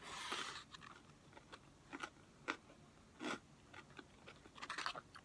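Close-miked eating sounds: a crunchy bite right at the start, then faint, scattered chewing crunches.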